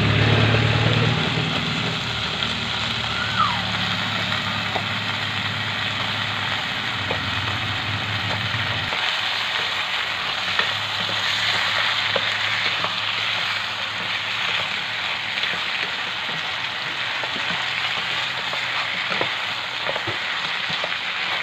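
Chopped garlic sizzling in butter in an enamel pot, a steady frying hiss; later, whole raw shrimp sizzle in the pot as they are stirred, with scattered light clicks of the utensil. A low hum underneath stops about nine seconds in.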